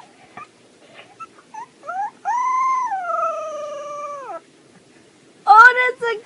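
Husky puppy giving a few small squeaky yips, then a long, high howl about two seconds in that rises and then slides slowly down. A lower, louder howling call starts near the end.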